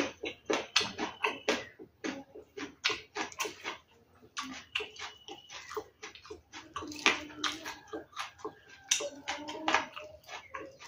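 Close-up wet chewing and lip-smacking of a person eating rice and fried fish by hand, a quick irregular run of moist mouth clicks several times a second.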